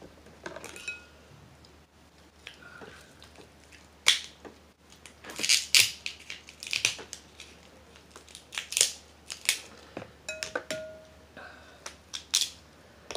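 Crab shells cracking and being pulled apart by hand and with kitchen scissors: a string of sharp cracks and crunches, most of them in the middle.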